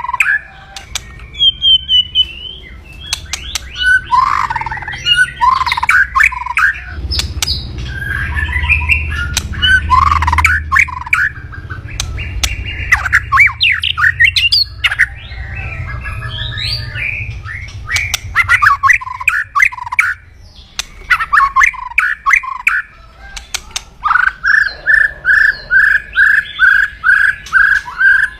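White-rumped shama giving aggressive 'kretekan' calls: harsh crackling rattles and sharp clicks mixed with squawky notes, ending in a quick run of about ten repeated notes.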